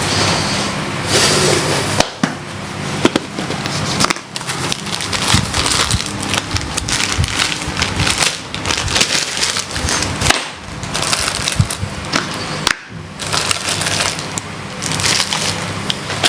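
Rummaging through small electronic parts while searching for a replacement capacitor: a continual clatter with many small clicks and knocks.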